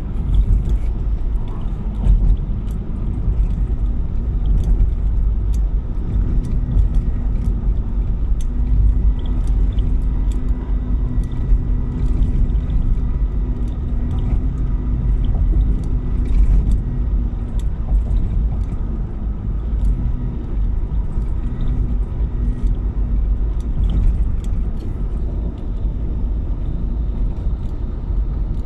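Car driving on a road: a steady low rumble of engine and tyre noise with a faint hum, and scattered light ticks throughout.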